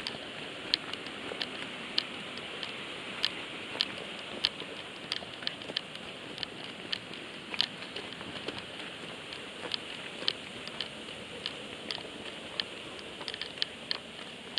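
Footsteps on a loose, stony track, with sharp clicks at irregular spacing, about one or two a second, from a pole's tip striking the stones, over a steady hiss.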